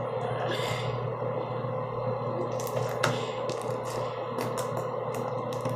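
Lotion-slicked slime being stretched and kneaded by hand, giving a run of short sticky clicks and pops from about halfway through. Underneath, a bathroom ceiling exhaust fan runs with a steady hum.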